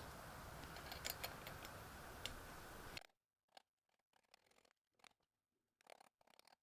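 Near silence: faint room tone with a few small clicks about a second in and again a little later, then a sudden drop to dead silence about three seconds in.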